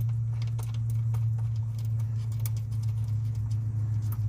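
Scattered light clicks and taps of hand tools being worked on metal, over a steady low hum.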